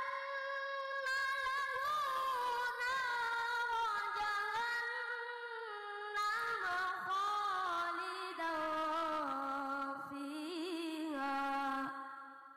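A young boy chanting Quran recitation into a microphone in a high voice: one long, ornamented melodic phrase that slowly falls in pitch, fading out near the end.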